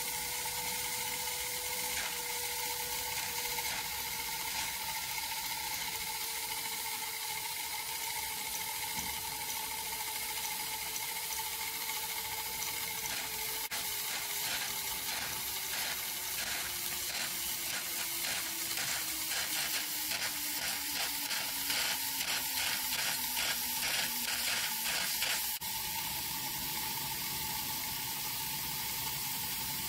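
Whizzer toy steam turbine with a sheet-metal can boiler running: a steady hiss of steam with a thin whine that slowly falls in pitch. From about halfway through, a rapid pulsing sputter joins in and stops abruptly a few seconds before the end.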